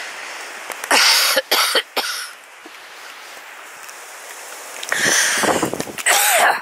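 A person coughing: three short coughs about a second in, then a longer stretch of loud noisy sound near the end.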